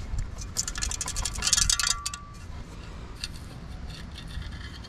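Stainless steel perforated sand scoop shaken to sift sand from a dug target: a quick run of rattling metal clicks with a brief ringing about a second and a half in, then a few fainter clicks.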